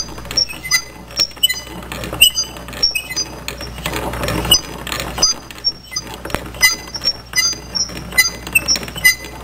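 Shopping cart rolling, its wheels rattling and squeaking in short irregular chirps, about two or three a second.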